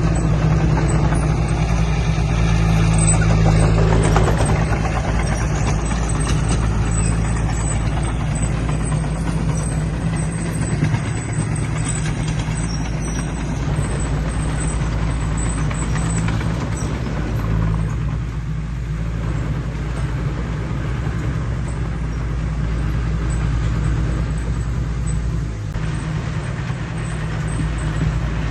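Heavy diesel earthmoving machinery running steadily under load: a continuous low engine drone with the noise of the machine working over it.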